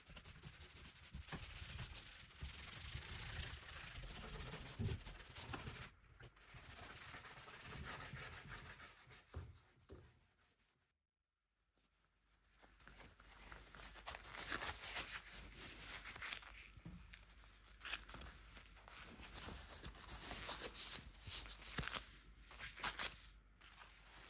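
A stiff bristle brush scrubbing a liquid over the rough wooden lid of an old chest, a steady scratchy rubbing. After a second of silence there is rustling and crackling as work gloves and then a roll of steel wool are handled.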